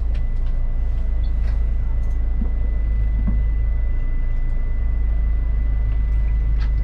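Steady low rumble of the Snobear tracked ice-fishing vehicle's engine running, heard inside its cabin, with a faint steady high whine and a few light clicks.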